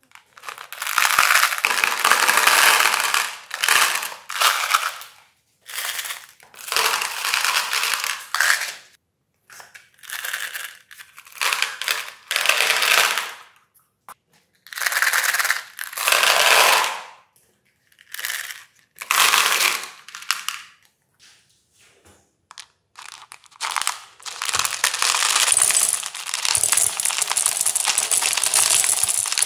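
M&M candies pouring and clattering into a plastic tub in repeated bursts of a second or two, with short pauses between. In the last several seconds comes one longer, continuous pour of candies rattling into the metal hopper of a meat grinder.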